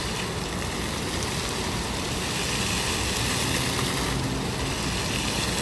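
Steady rush of water from a large plaza fountain, an even hiss with no breaks.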